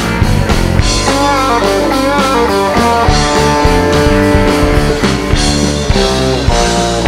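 Live rock band playing: guitar over bass and drum kit, with a run of sliding, bending notes about a second in.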